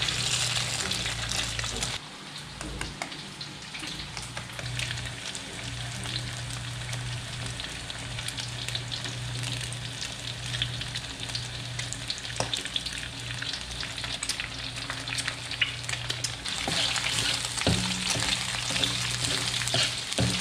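Eggs sizzling in hot oil in a wok as they are cracked in over fried shallots. The sizzle is loudest at first and rises again near the end, when a metal ladle stirs them, with a few clicks of ladle on wok.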